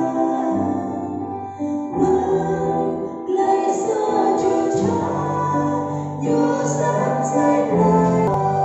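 Two women singing a hymn together into microphones through a church PA, over a held-chord keyboard accompaniment.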